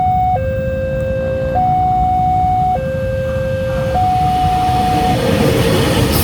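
Railway level-crossing warning alarm sounding a two-tone electronic signal, switching between a lower and a higher pitch about every second and a quarter. Over the last two seconds the rushing noise of an approaching train rises under it.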